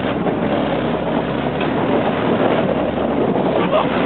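Tank running under way, a loud steady mechanical noise, with wind buffeting the microphone.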